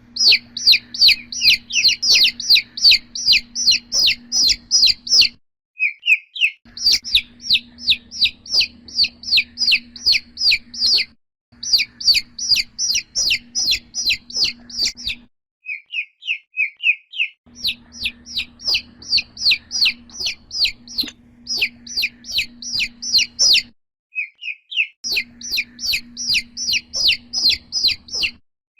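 Domestic chick peeping over and over, about three or four short high peeps a second, each peep dropping in pitch. The peeps come in runs of several seconds broken by short pauses.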